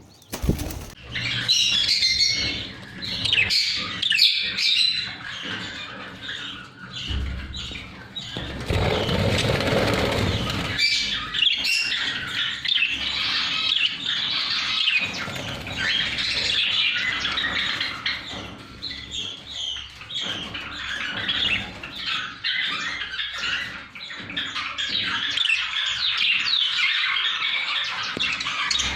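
A crowd of small pet parrots chattering and squawking without a break, many short calls overlapping. A burst of wing flapping comes about nine seconds in.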